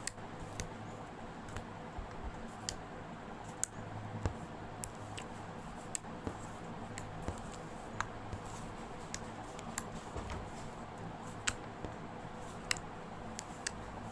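Homemade glue-and-activator slime being kneaded and squeezed by hand, giving irregular sharp clicks and pops.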